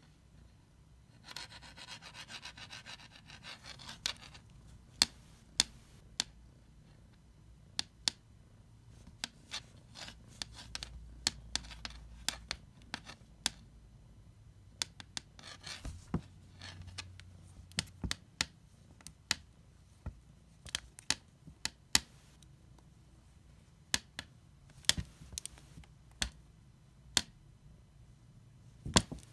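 A kitten pawing at a plastic Sharpie marker on a wood-laminate floor: many irregular sharp clicks and taps. Two stretches of rubbing and scratching come in between, one about a second in and one around the middle.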